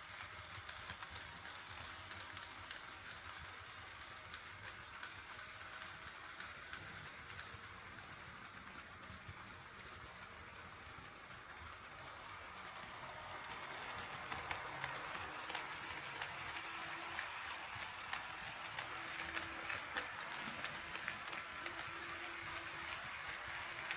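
HO scale model train running on KATO Unitrack, a steady rolling rattle with fine clicking from the wheels on the rails. It grows louder about halfway through as the train comes closer, with a faint on-and-off motor hum near the end.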